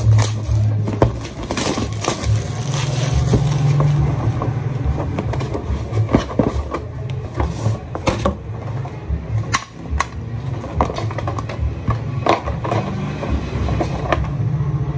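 Clear plastic wrap being peeled off a cardboard headphone box and the box being opened and handled: many crinkles, scrapes and taps, over a steady low hum.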